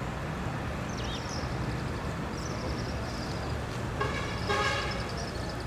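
Outdoor road ambience: a steady low traffic rumble, with a vehicle horn tooting briefly about four seconds in.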